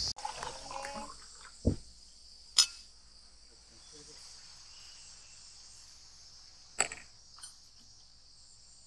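Steady, high-pitched chorus of insects, with a few short sharp taps scattered through it.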